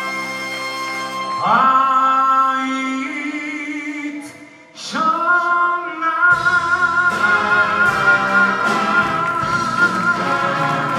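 Male singer holding long notes with vibrato over a big band: a sustained brass chord, then a note sliding up and held for about three seconds, a brief break, and a second long held note from about five seconds in, with drums and the band coming in beneath it.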